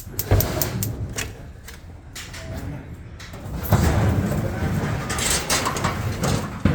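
The grill's push-button electronic igniter clicks rapidly for about the first second, then there is louder scraping and rattling of sheet-metal grill parts being handled and fitted.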